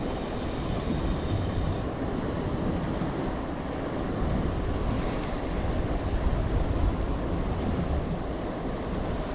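Wind buffeting the microphone over open sea, with waves washing around the boat: a steady, rumbling rush of noise.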